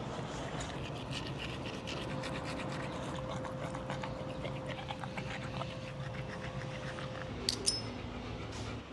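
A pit bull's breathing and mouth sounds, a run of short rasping pants and licks, while its chin is held and rubbed. About seven and a half seconds in come two sharp metallic clicks, the leash's metal buckle.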